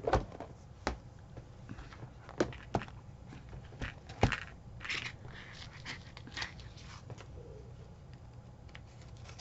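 Clear plastic compartment box of sequins being handled on a table: a handful of sharp plastic clicks and knocks in the first half, then softer rustling.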